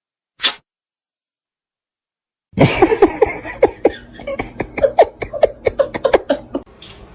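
A short burst of noise about half a second in, then, from about two and a half seconds in, a person laughing hard in quick repeated bursts for about four seconds.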